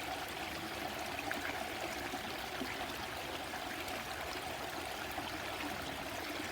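Small stream flowing steadily, water trickling and gurgling over rocks.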